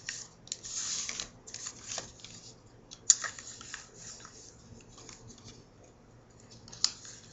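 A folded square of paper rustling and creasing as fingers fold its flaps and press them flat against a wooden table, in short scratchy swishes, with two sharp ticks, one about three seconds in and one near the end.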